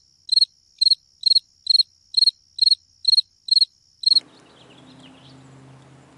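Cricket chirping in an even rhythm, about two chirps a second, over a thin high steady tone. It cuts off suddenly about four seconds in, leaving a faint steady hum.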